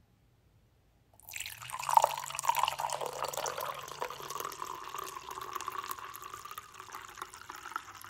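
Red wine poured from a bottle into a stemmed glass wine glass. The pour starts about a second in, splashes loudest just after, then runs steadily as the glass fills.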